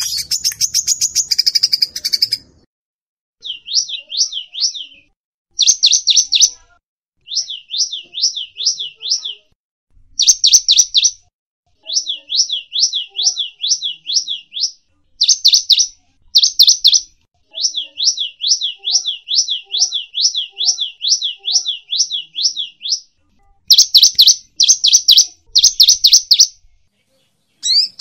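Songbird song in the canary-mix style, a canary with cinereous tit (gelatik batu) and sunbird (kolibri) phrases. A dense, high trill opens it. Then come runs of quick, high notes, each sweeping down in pitch, several a second, broken by short pauses.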